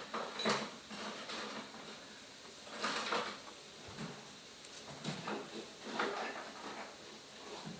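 A series of short scrapes and knocks, about six spread irregularly, like hard parts being handled and moved.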